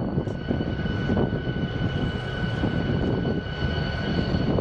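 Norfolk Southern diesel locomotives approaching, their engine rumble mixed with heavy wind buffeting the microphone. A steady high whine runs over the rumble.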